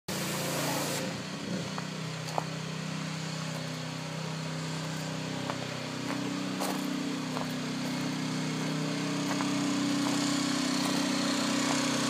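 Gas-engine pressure washer running steadily under a steady hiss, its engine note growing louder near the end.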